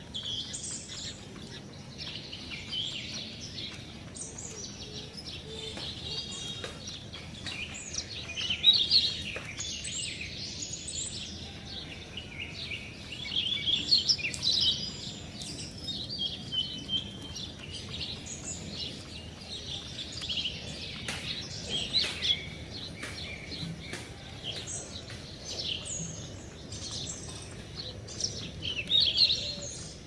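Small birds chirping and calling continuously, a busy overlapping chorus of short high chirps with louder flurries every few seconds.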